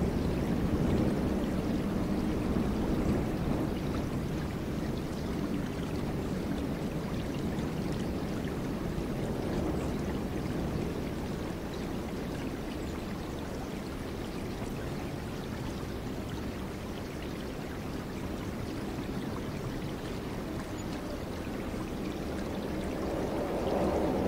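Ocean surf: waves breaking and washing in, a steady rushing that eases off in the middle and swells again near the end.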